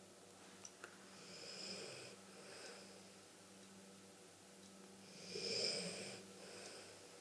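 Snoring: two long, high-pitched whistly snores about four seconds apart, the second louder, each followed by a shorter, softer breath.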